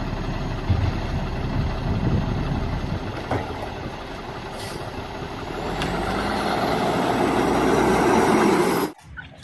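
Garbage truck's diesel engine running as the automated side-loader works a curbside cart, getting louder as the truck moves closer, then cutting off suddenly near the end.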